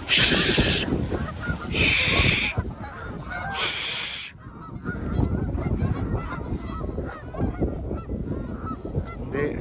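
A large flock of Canada geese honking continuously as it takes off and flies away, many overlapping calls at once. Three loud rushing bursts of noise come in the first four seconds.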